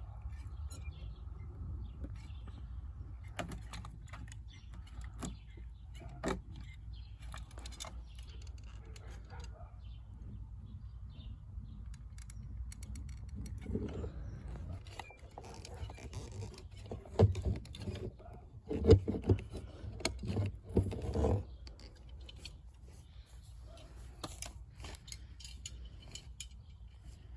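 Scattered light clicks and knocks of a caulking gun and hand work while construction adhesive is run around the seams, with a burst of louder knocks and thumps about two-thirds of the way through.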